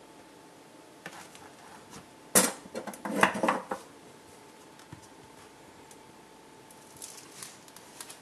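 A hardcover portfolio being handled on a hard countertop: a sharp knock about two seconds in followed by a quick run of clattering taps, then soft rustling near the end as the cover is lifted open.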